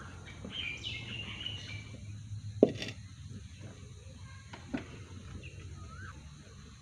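Wood fire burning in a clay hearth, with birds chirping in the background. A sharp knock comes about two and a half seconds in and a softer one about two seconds later.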